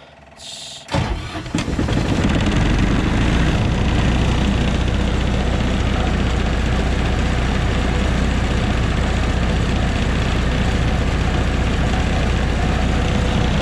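MEP-802A military diesel generator engine cranking briefly, catching about a second in and settling into a steady run. It is a cold start with no preheat.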